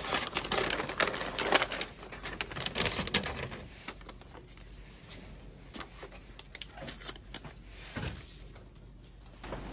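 Kraft wrapping paper crinkling and rustling as it is pulled open by hand, dense and loud for the first few seconds, then softer, sparser paper handling as glossy magazines are lifted out. A dull thump about eight seconds in.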